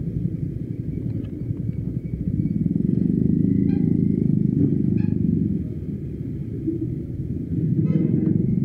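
Motorcycle engine running under way, with wind rumble. It gets louder about a third of the way in, eases off past the middle, and rises again near the end.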